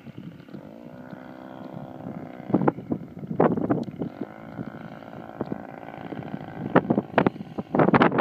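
Giant-scale RC aerobatic plane's engine running in the distance, its pitch rising about half a second in and then holding steady before fading after about five seconds. Gusts of wind buffet the microphone throughout, loudest near the end.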